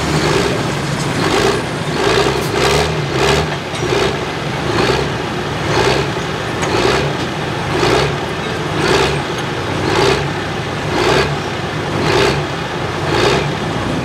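Turbocharged Farmall diesel tractor running hard under load while pulling the sled, its sound pulsing in a steady rhythm that slows toward the end.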